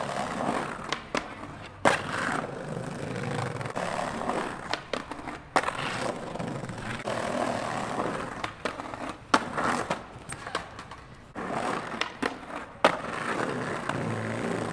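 Skateboard wheels rolling over stone paving and a brick-tiled bank, with a steady rumble. Four loud, sharp clacks of the board hitting the ground are spread through the rolling, about every three to four seconds, with lighter clicks between them.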